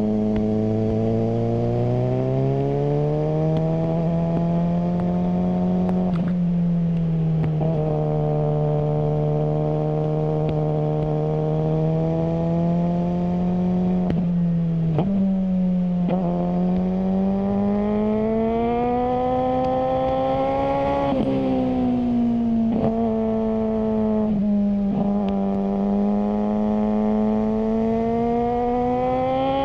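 Suzuki GSR600 inline-four engine through a GPR Ghost aftermarket exhaust, running under way. Its pitch climbs gradually, then drops back at several short breaks, as at gear changes, and climbs again.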